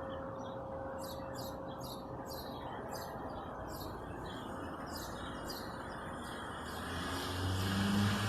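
Birds chirping at dawn: a run of short, high chirps repeated about two to three times a second, over a steady background hiss. Near the end a low droning hum swells up.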